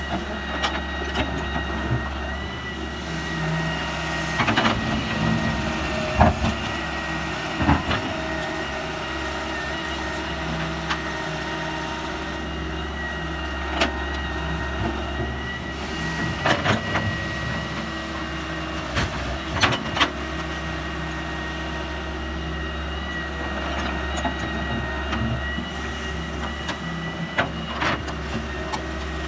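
Heavy machinery engine running steadily, with sharp metallic clanks and knocks every few seconds.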